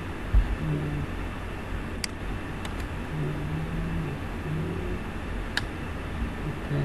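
Steady background rumble and hiss, with three short sharp clicks: two close together about two seconds in and one more later. The clicks are likely computer mouse clicks.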